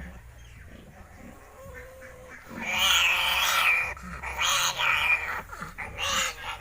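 A piglet squealing in harsh, loud bursts, one long squeal of over a second followed by several shorter ones, as it is held for a vitamin injection in the neck.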